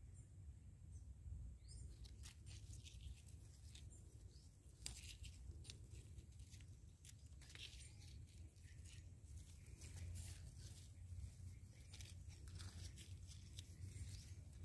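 Faint rustling and crackling of groundcherry leaves and stems being handled by hand, with scattered small clicks.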